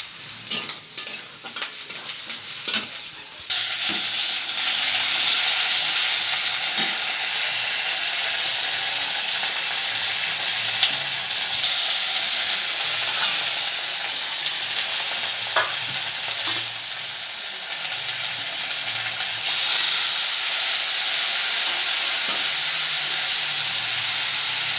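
Onion-tomato masala with spice powders frying in oil in a pan, stirred with a spoon: a few sharp spoon clicks on the pan at first, then a steady sizzle that comes in suddenly louder about three and a half seconds in. A few more spoon taps on the pan come through about two-thirds of the way in.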